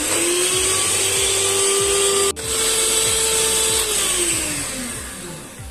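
Electric hand mixer running at speed, its beaters whisking eggs and sugar into a pale, foamy mix in a plastic bowl: a steady motor whine with a whirring rush. It cuts out for an instant about two seconds in, then near the end the motor's pitch falls and the sound fades as it winds down.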